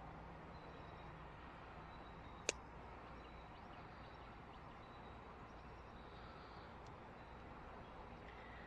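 Quiet steady background hiss with one sharp click about two and a half seconds in, as fishing pliers work the hooks of a topwater lure out of a bass's mouth.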